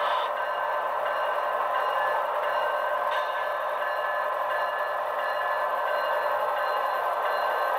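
HO scale ET44AC Tier 4 GEVO model locomotive running slowly along the track, a steady, even running sound that holds the same level throughout.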